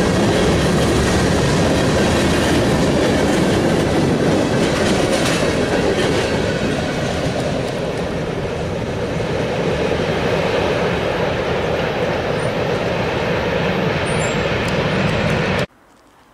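Freight train of covered hopper cars rolling past at a grade crossing: a steady, loud rumble of steel wheels on the rails with clickety-clack over the joints. It cuts off suddenly near the end.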